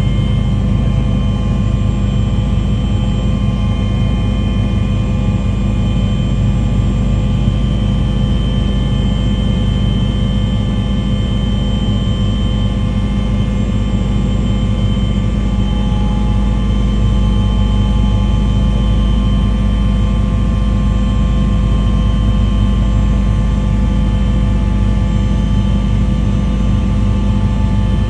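Engine running with a steady, unchanging drone: a loud low rumble with a constant hum over it.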